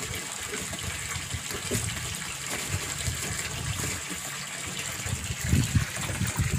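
Steady gush of a stream of water pouring from a pipe into a concrete fish pond. A few low thumps of handling about five and a half seconds in.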